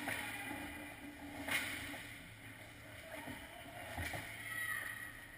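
Ice hockey skates scraping and carving on rink ice, with two sharp scrapes, one at the start and one about a second and a half in, and a few light knocks of sticks and puck.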